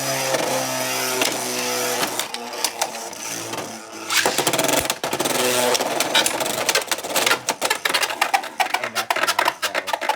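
Two Beyblade spinning tops whirring in a plastic stadium, then clacking and rattling against each other and the stadium walls in a quick run of hits that grows busier toward the end, as the battle heads for a knockout.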